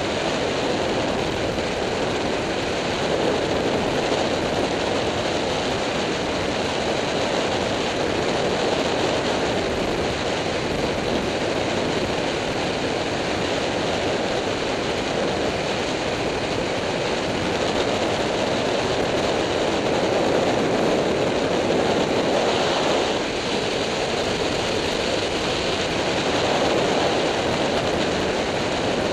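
Wind rushing over the camera microphone on a Yamaha FZ6-R motorcycle moving at road speed: a steady noisy rush that swells and eases a little, with no clear engine note standing out.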